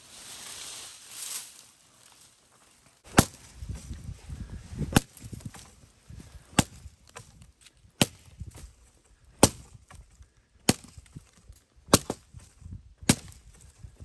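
Kukri chopping into a log: eight sharp blade strikes, roughly one every one and a half seconds, starting about three seconds in.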